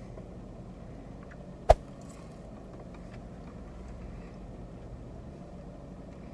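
Steady low rumble inside a parked car's cabin, with one sharp click about a second and a half in.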